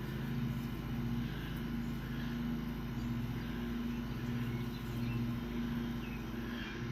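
Steady low mechanical hum, like a motor or engine running, holding an even pitch throughout.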